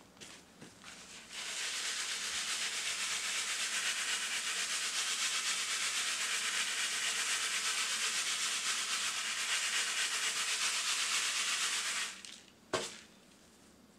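Chopped charcoal being shaken back and forth in a wooden-framed sieve screen. Pieces and fines rattle and sift through the mesh as a steady hiss, starting about a second in and stopping near the end, followed by a single knock.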